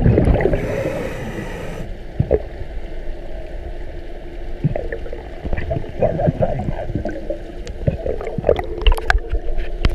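Muffled underwater gurgling and bubbling from a scuba diver's breathing, heard through a head-mounted GoPro's waterproof housing. It is loudest for about the first two seconds, then drops to a quieter wash with scattered clicks and pops.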